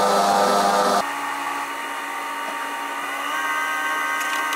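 Espresso machine running as it brews, a steady machine hum. About a second in it drops abruptly to a quieter hum, which rises slightly in pitch about three seconds in.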